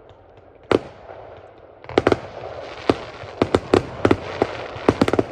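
Aerial fireworks exploding: a single sharp bang under a second in, then from about two seconds a fast, irregular run of bangs and cracks.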